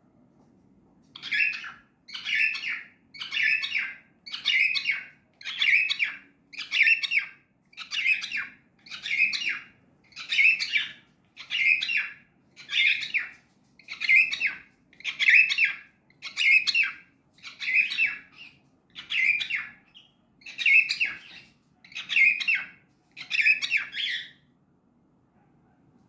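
A lutino cockatiel calling over and over: about twenty short, shrill chirps, evenly spaced at roughly one a second, starting about a second in and stopping a little before the end.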